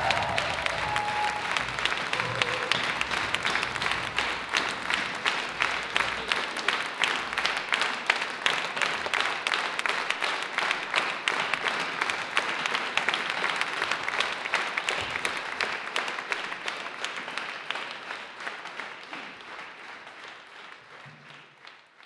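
Concert audience applauding: dense, steady clapping that fades out over the last several seconds.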